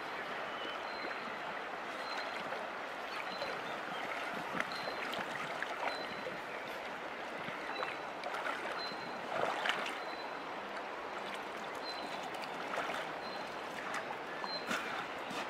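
Shallow stream running steadily over a gravel bed, with a few short splashes and knocks over the water sound.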